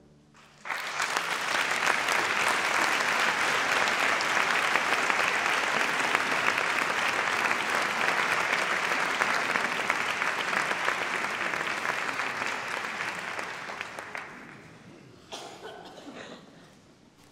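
Audience applauding: the clapping starts about a second in, holds steady for some twelve seconds, then dies away, with a few last claps near the end.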